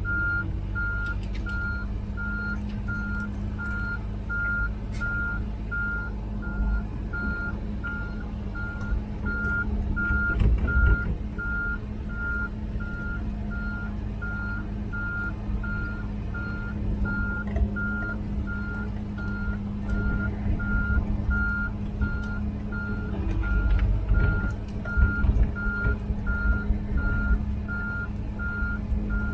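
Komatsu PC16 mini excavator travelling, its diesel engine running steadily while the travel alarm beeps at about two beeps a second without a break.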